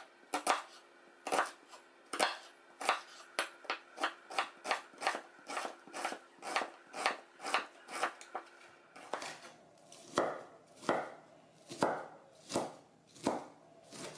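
Kitchen knife chopping an onion on a wooden cutting board: a steady run of knocks about two to three a second, slowing to fewer, spaced-out strokes in the last few seconds.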